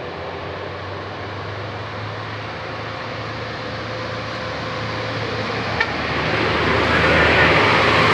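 A vehicle's engine running with a steady low hum, and its noise growing louder over the last three seconds; a single sharp click about six seconds in.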